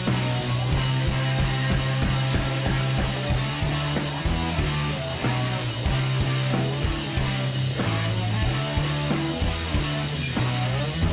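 Rock music with electric guitar, bass and drum kit, playing with a steady beat.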